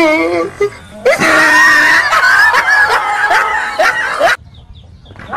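A wavering wail, then about three seconds of loud, high-pitched screaming that cuts off suddenly.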